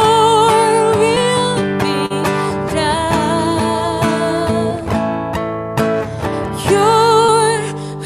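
Worship band music: strummed acoustic guitar and sustained chords under a melody held in long, wavering notes, near the start and again near the end.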